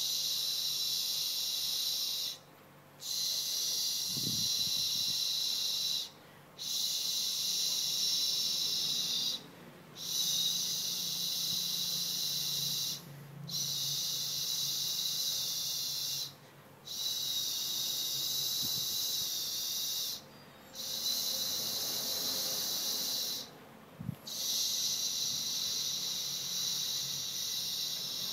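High-pitched insect calls, a steady buzzing that breaks off for a short pause about every three and a half seconds and then starts again.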